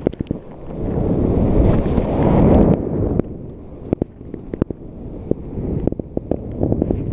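Wind rushing over the microphone and skis hissing through snow during a fast descent, stopping abruptly about three seconds in. After that, skis sliding slowly with scattered clicks and knocks from the skis and poles.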